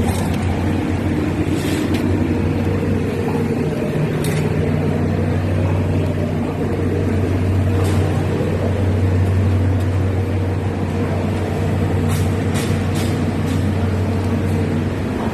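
A heavy engine running steadily with a deep hum, and a few brief sharp clicks.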